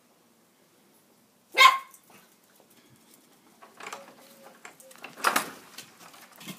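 Border terrier barking: one sharp bark about a second and a half in, and another about five seconds in, with clattering and rustling between.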